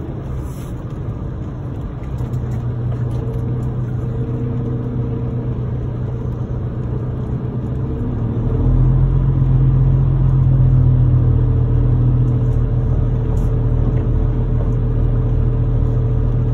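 Tractor-trailer's diesel engine rumbling steadily, heard from inside the cab as the truck moves slowly across a yard; it grows louder about halfway through.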